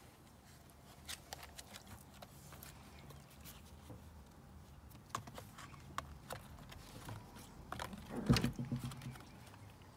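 Puppies' and a dog's paws and claws tapping and scuffing on a plywood board, scattered light clicks over a low steady hum, with a cluster of louder knocks and a thud a little after eight seconds in.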